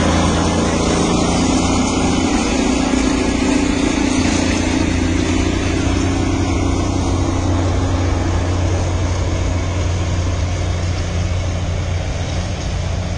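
Engine running steadily with a low hum, easing slightly in level toward the end.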